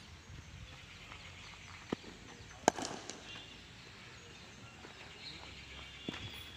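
A cricket bat striking the ball once with a sharp crack about two and a half seconds in, with a couple of fainter knocks before and after.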